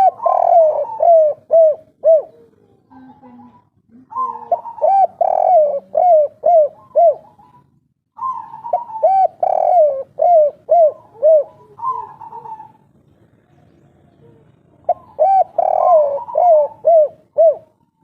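Spotted dove (derkuku/tekukur) cooing its 'kuk 3' song: four phrases, each a quick run of six or seven arched coos, about one phrase every four seconds.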